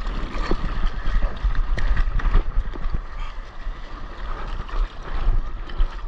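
Seawater splashing and lapping against a surfboard moving through choppy water, in irregular small splashes. Wind buffets the microphone in a steady low rumble underneath.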